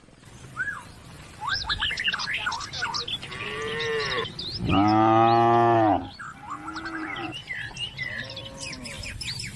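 Cattle mooing: one long, loud moo about five seconds in, with shorter, higher calls before and after it. Small birds chirp rapidly throughout.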